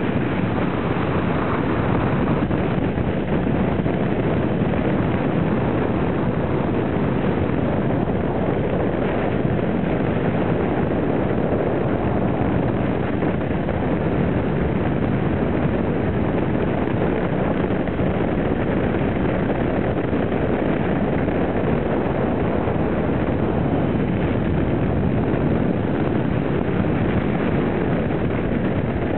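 Triumph Tiger 800 XCx motorcycle cruising at a steady speed: a steady rush of wind and engine noise.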